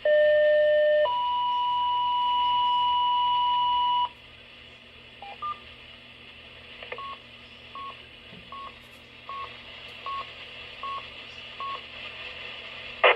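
Electronic beep tones: a loud lower tone for about a second, then a higher steady tone held about three seconds, followed by a run of short touch-tone (DTMF) beeps about one every 0.8 s. A sharp click comes near the end.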